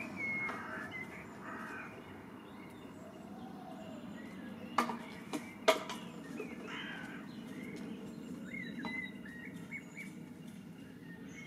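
Birds chirping over a steady low background rumble, with three sharp cracks in quick succession about five seconds in.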